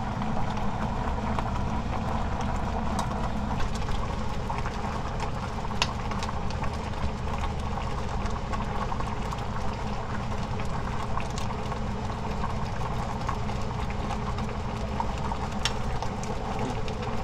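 A pot of braised flounder in spicy soy broth boiling steadily, with a few light clicks over a steady hum.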